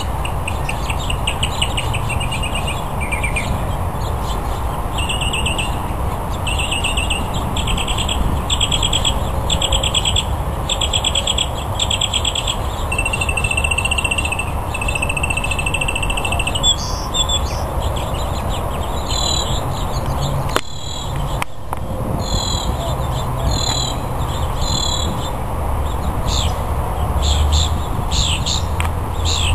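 Male northern mockingbird singing its courtship song: a long run of varied phrases, each repeated several times in quick succession, over a steady low rumble.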